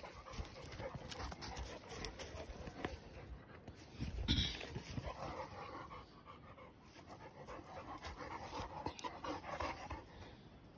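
A large mastiff-type dog panting close by, with rustling through the undergrowth and one louder rustling thump about four seconds in.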